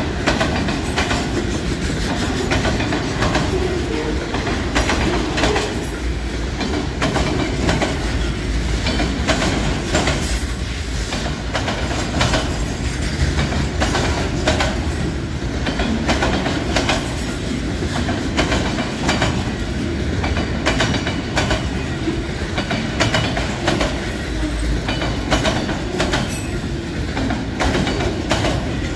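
Freight train of autorack cars passing close by: a steady rumble of steel wheels on rail, with repeated clacks as the wheels cross the rail joints.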